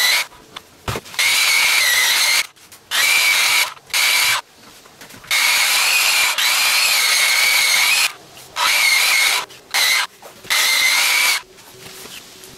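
A Makita 9741 wheel sander's electric motor runs with a high, steady whine in about six bursts of one to three seconds each, switched on and off in turn as its abrasive wheel works the weathered surface of an old log. The last burst stops a little after eleven seconds in.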